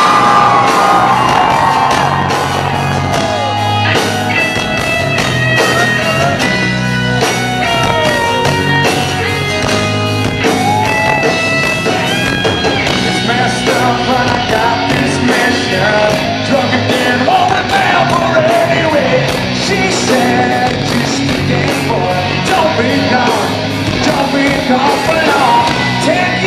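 Live rock band playing an instrumental stretch of the song, with drums, electric guitars and bass, and crowd yelling mixed in.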